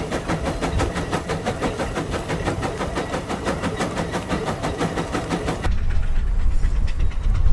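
Case 150 steam traction engine chuffing in an even, rapid rhythm of roughly four to five exhaust beats a second as it pulls a large gang plow. About five and a half seconds in, the chuffing cuts off abruptly to a heavy low rumble.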